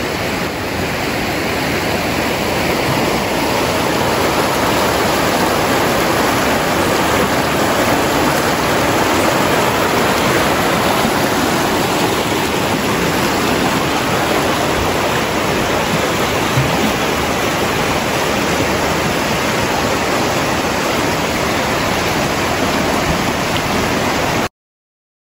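A shallow, rocky river rushing over stones in a steady wash. It cuts off abruptly near the end.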